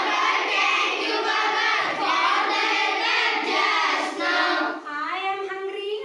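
A group of children singing an action rhyme together in chorus. About five seconds in, the chorus thins and fewer voices carry the tune more clearly.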